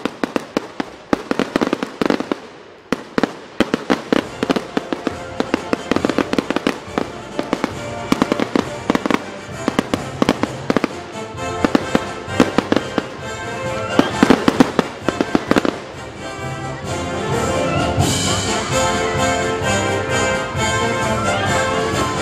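Aerial fireworks going off: many quick bangs and crackles in rapid succession. About three-quarters of the way through the bangs thin out and music comes up louder and carries on.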